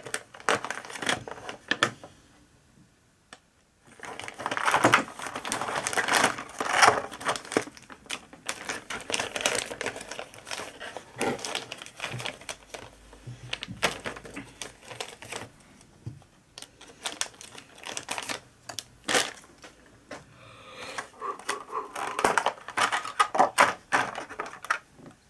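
Clear plastic packaging crinkling and crackling as a bag is cut open and unwrapped by hand, then a plastic blister tray being handled and opened, with sharp clicks of the plastic. There is a short near-silent pause about two seconds in.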